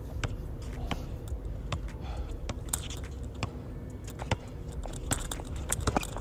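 Basketball being dribbled on an outdoor hard court: a series of sharp bounces and taps, irregularly spaced about a second or less apart, over a low rumbling background.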